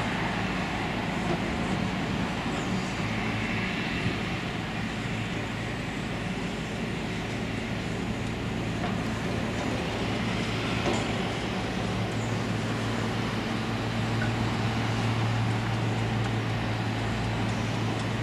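Business-jet turbofan engines running at taxi power: a steady rush with a low hum that grows louder over the last few seconds.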